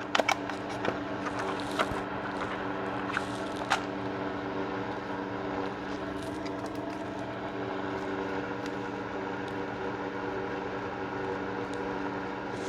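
A steady machine hum, with a few light clicks and taps from gun parts being handled during cleaning in the first four seconds.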